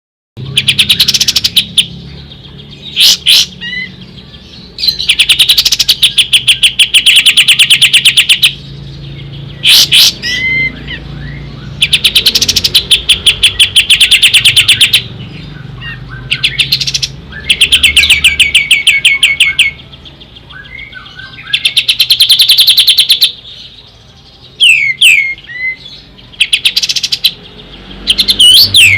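Kapas tembak singing: bursts of rapid, evenly repeated trilled notes, each lasting two to three seconds and coming every few seconds, with short slurred whistles in between. A faint low hum runs underneath.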